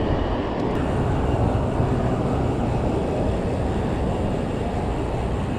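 Wind buffeting an action camera's microphone on a moving bicycle: a steady low rumble of rushing air.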